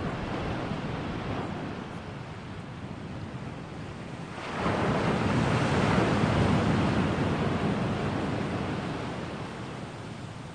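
Ocean waves washing ashore, with one wave surging in sharply about four and a half seconds in, then slowly receding.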